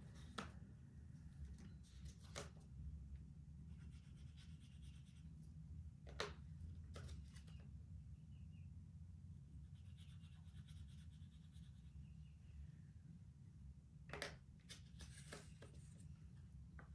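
Near silence: faint scratching of an oil pastel on paper, with a few light clicks and taps of pastel sticks in their tray.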